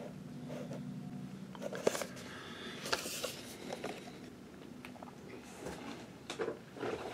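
Cardboard action-figure boxes with plastic windows being handled and stacked, giving a few light knocks and scrapes of cardboard against cardboard.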